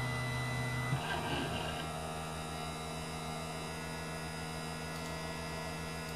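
Stepper motors of a 3D printer converted into a pick-and-place machine, whining steadily as the head moves and stopping about a second in. A steady electrical hum from the machine continues while it holds position for bottom-camera part alignment.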